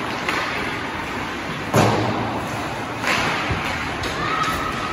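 Ice hockey play: a loud knock with a low boom about two seconds in, then a second, lighter knock about a second later, over steady rink noise.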